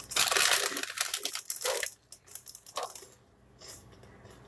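Plastic packaging crinkling and rustling as it is handled for about two seconds, followed by a few short rustles.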